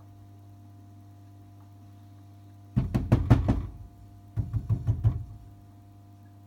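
Wurlitzer 750E jukebox mechanism humming steadily, then two quick runs of mechanical clacking from the record-changer gears and levers, each about a second long, the first about three seconds in.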